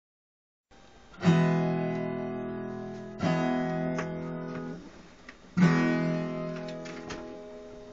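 Acoustic guitar strummed three times, each chord left to ring out and fade: about a second in, about three seconds in, and between five and six seconds in.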